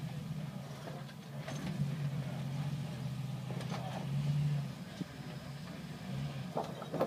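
Jeep Wrangler YJ engine running at low revs as it crawls over granite boulders, rising briefly in revs about four seconds in before settling again.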